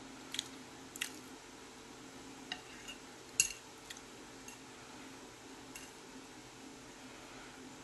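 Metal fork clinking and scraping against a plate as noodles are twirled onto it: a handful of sharp clicks, the loudest about three and a half seconds in.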